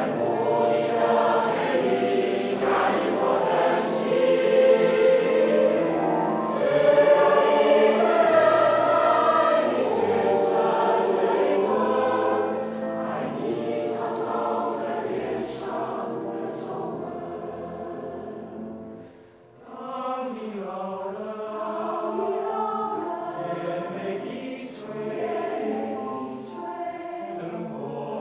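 Choir singing in harmony, with a brief dip about nineteen seconds in before the voices resume.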